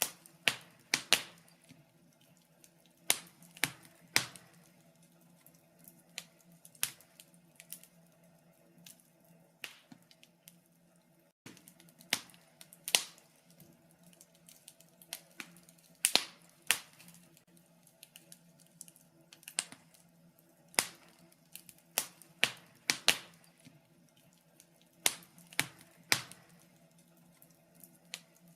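Wood fire burning in a fireplace, crackling with irregular sharp pops and snaps, sometimes in quick clusters, over a faint steady hum.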